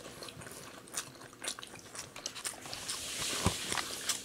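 Close-up chewing of chewy flounder-fin sushi, with small wet mouth clicks and smacks scattered through, and a brief soft rustle about three seconds in.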